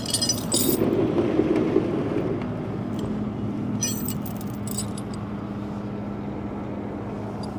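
Tow truck engine running steadily at idle, with chain and steel hooks clinking as they are handled, in two short bursts near the start and about halfway through.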